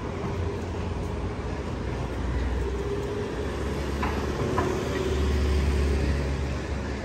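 Cars driving past on a city street, a steady engine and tyre rumble that swells about five seconds in as a car passes close.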